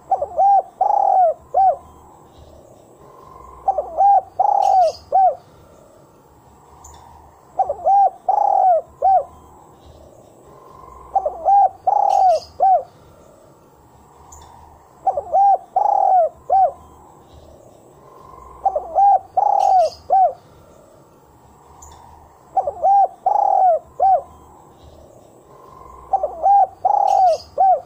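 Spotted dove (tekukur) cooing: a phrase of four or five quick, mid-pitched notes, repeated steadily about every four seconds, eight times.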